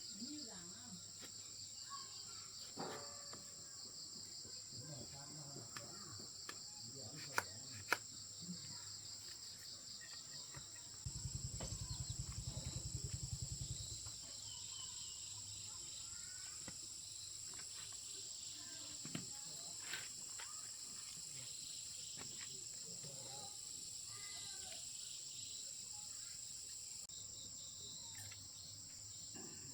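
Insects chirring in a steady, high-pitched chorus. Two sharp clicks come about seven to eight seconds in, and a low pulsing buzz, the loudest sound here, runs for about three seconds near the middle.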